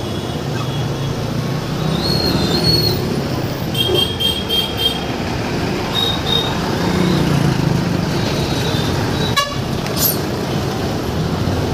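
Busy street traffic heard from a moving bicycle: vehicle engines running, with short high-pitched horn beeps several times, including a quick run of beeps about four seconds in.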